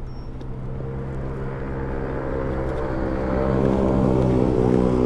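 A vehicle engine running steadily, growing louder through the second half.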